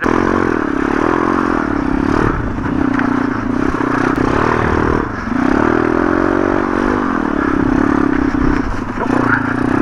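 MRF 140 RC pit bike's single-cylinder four-stroke engine revving up and down while ridden on slippery snow, its pitch rising and falling several times. The bike's frame and plastics rattle over the bumps.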